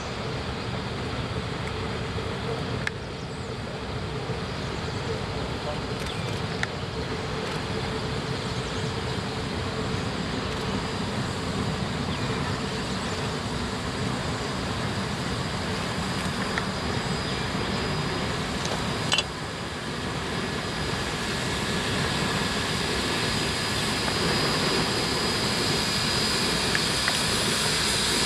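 Three Shay geared steam locomotives working a train: a continuous din of exhaust and running gear that grows louder as they draw near and pass.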